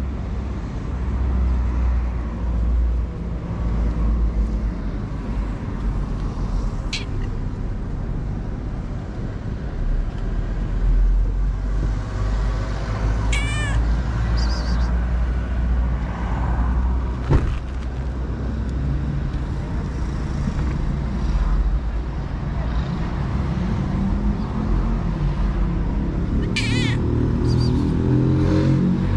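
Calico street cat meowing in short, high, rising-and-falling calls, a couple about halfway through and again near the end, over a steady low rumble.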